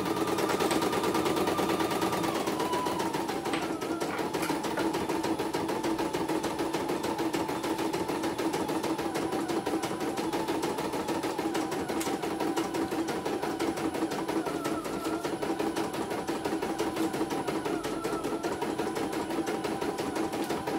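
CNY E900 computerized embroidery machine stitching steadily, its needle going in a rapid, even rhythm.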